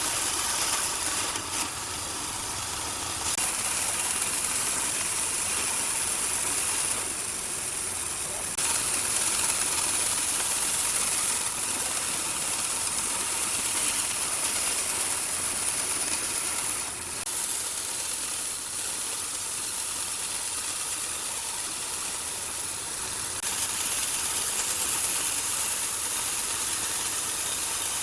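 A power tool working wood: a steady, hissing run whose level steps up and down every few seconds as the load changes.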